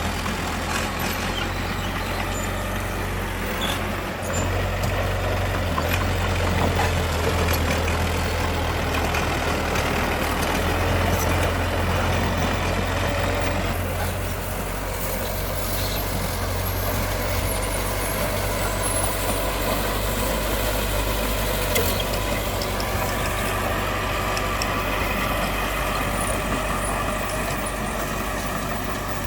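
Heavy diesel earthmoving machinery running steadily, its engine note shifting a little as it works.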